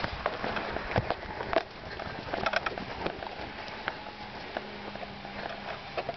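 Footsteps and scuffing on grass with irregular knocks and rustles from a handheld camera, busiest in the first few seconds, as it follows a trotting dog closely.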